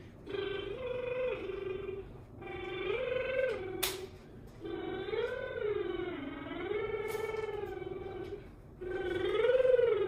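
A woman's voice singing vocal warm-up exercises: four sustained phrases with vibrato, each swelling up in pitch and back down. A sharp click comes about four seconds in.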